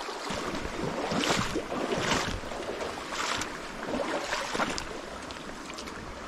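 Footsteps through a shallow rocky creek, water splashing and stones shifting about once a second over the steady rush of the stream, the steps fading near the end.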